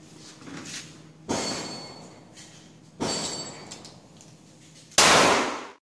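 Three handgun shots about two seconds apart at an indoor range, each with an echoing tail; the third is the loudest.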